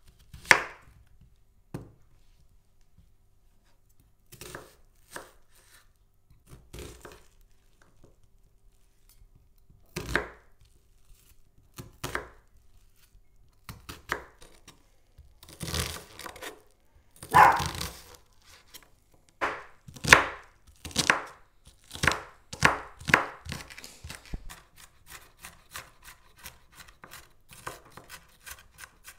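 Chef's knife cutting an onion on a bamboo cutting board: separate knocks of the blade against the board a few seconds apart, then a quick run of rapid chopping near the end as the onion is diced.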